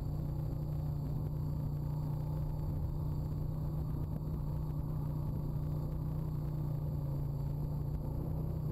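Honda ATV's single-cylinder four-stroke engine running at a steady speed on the move, with a steady low rumble.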